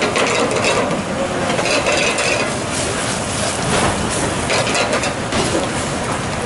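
Gnocchi and tomato sauce sizzling in a stainless steel sauté pan on a gas burner, with scattered clinks and knocks of the pan as it is stirred and tossed.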